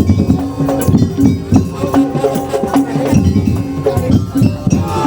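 Madurese daul music: a percussion ensemble of drums and clacking, rattling percussion playing a busy, steady rhythm under short pitched melodic notes.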